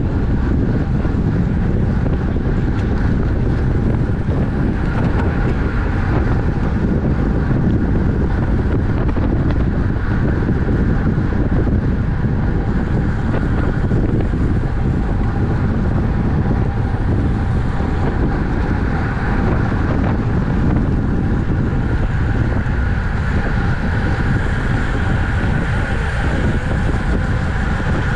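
Steady wind rush on a camera microphone carried at bicycle racing speed: a constant loud rumble with faint steady tones above it.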